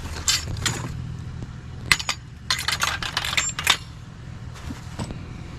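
Metal curtain rods clattering and clinking against each other as they are picked up and handled, several sharp metallic knocks with a brief ring.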